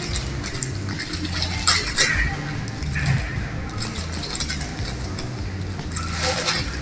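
Clear plastic bags crinkling and rustling in short bursts as gloved hands handle bagged accessories, over a steady low hum.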